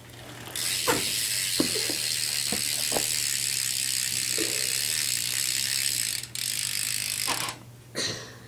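BMX rear hub (Fit Bike Co.) freewheeling as the back wheel spins: the pawls click so fast they run together into a steady high buzz. The buzz starts about half a second in, breaks briefly near six seconds and stops near the end, with a few light knocks in the first few seconds.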